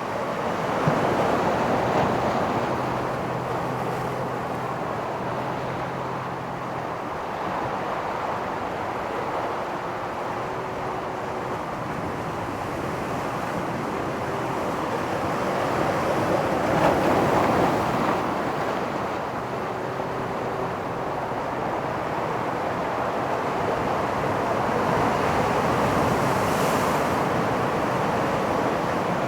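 Pacific surf breaking and washing up a sand beach, a continuous rushing that swells and eases, with the loudest wave crashing about seventeen seconds in.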